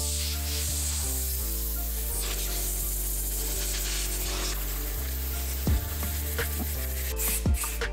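Background music over a steady hiss from a handheld air blow gun blowing water off a motorcycle's bodywork, with a few short knocks near the end.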